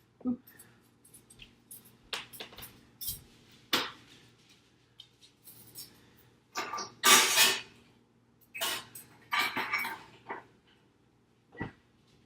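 Kitchen cookware and dishes being handled: a string of clinks, knocks and scraping noises, with the loudest, longest scrape about seven seconds in.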